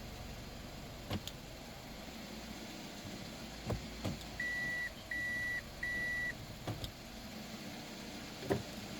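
Toyota 1AZ-FSE four-cylinder engine idling evenly, with a few sharp clicks and, a little before the middle, three short high electronic beeps from the car.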